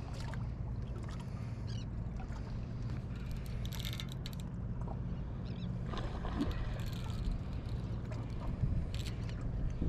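Boat motor running steadily with a low, even hum, with a few short clicks and rubbing from a baitcasting reel and rod being handled during a fish fight.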